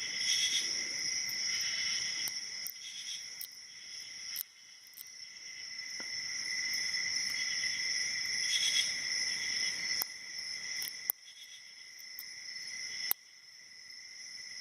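Crickets chirping steadily in the background, a continuous high-pitched trill, with a few sharp faint clicks now and then from a lock pick working the pins of a padlock.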